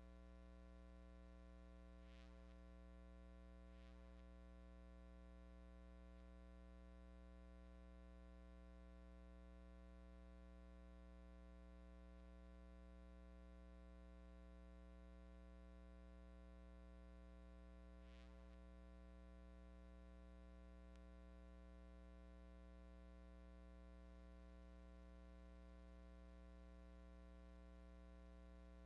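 Near silence filled by a steady low electrical hum, with three faint ticks, two in the first few seconds and one about two-thirds of the way through.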